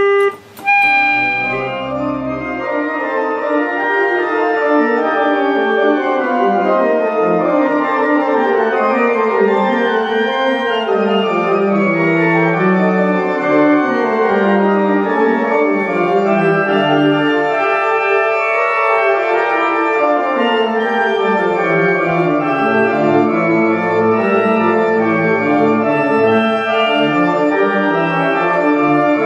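A single steady held note cuts off just after the start. Then the restored church pipe organ plays a fast-moving, many-voiced classical piece, with low pedal notes moving beneath the upper parts.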